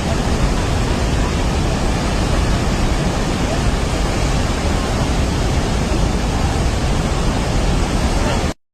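Loud, steady rush of floodwater, an even roar without breaks that cuts off suddenly near the end.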